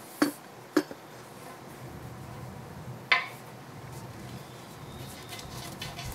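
Handling noise of a rubber hose being fitted to a Volvo Penta SX-M outdrive transom shield: three sharp clicks of parts knocking together, the loudest about three seconds in, then quicker small clicks and rustling near the end, over a faint steady low hum.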